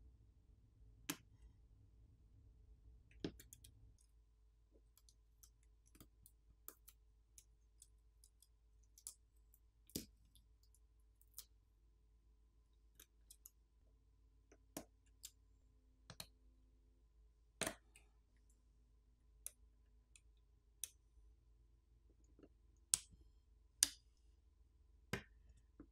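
Faint, irregular small clicks and taps as the battery and other flex-cable connectors inside a Samsung Galaxy S25 Ultra are unclipped from the board, with a few sharper clicks near the end.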